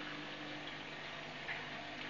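Steady hum and watery hiss of a saltwater reef aquarium's pumps and filtration running, with one light click about a second and a half in.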